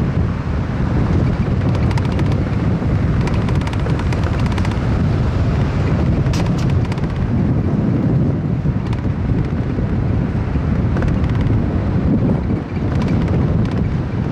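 Wind buffeting the microphone: a loud, continuous low rumble, with a few faint clicks about halfway through.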